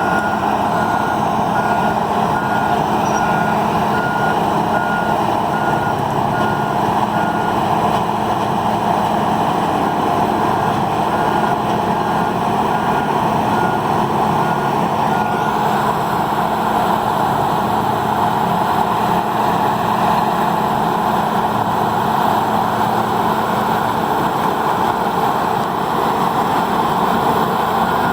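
Peterson 5710D horizontal grinder running steadily under full load, a loud, unbroken mechanical din. A vehicle's reversing alarm beeps at a steady pace for the first seven seconds or so and again midway.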